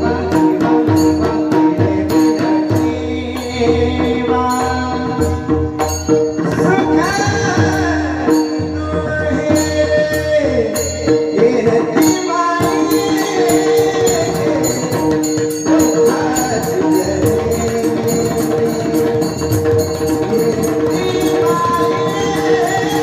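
Marathi Warkari kirtan chal: a singing voice carrying a devotional tune over steady held drone notes, with pakhavaj drumming and a regular beat of bright metallic strokes.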